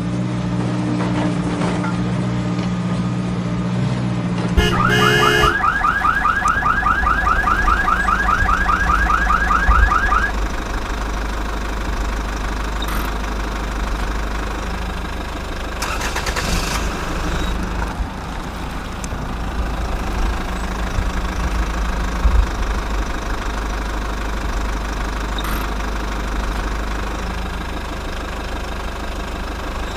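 Electronic sound effects from a toy RC excavator or truck: a rapid warbling chirp, like a car alarm, from about five seconds in to about ten seconds, then a steady low simulated engine-idle rumble with occasional clicks.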